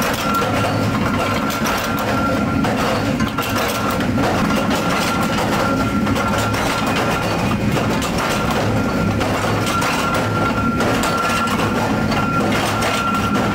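Workshop machinery running steadily, with a dense metallic clatter over a low hum and a thin, steady whine.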